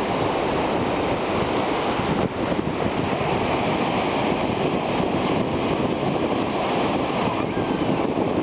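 Wind blowing across the microphone over the surf at a beach: a steady, loud rushing noise with no distinct breaks.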